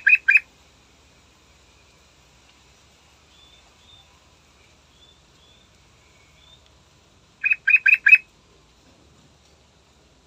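Yellow-vented bulbul (trucukan) singing in short bursts of quick notes: three at the start and four more about seven and a half seconds in, with faint high chirps in between.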